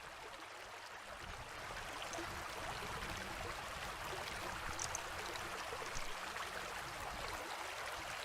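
Fast-flowing upland stream: a steady rush of running water.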